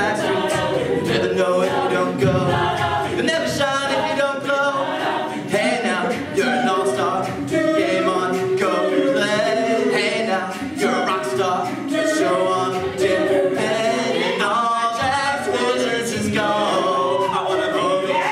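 Mixed-voice a cappella group singing in close harmony, voices alone with no instruments.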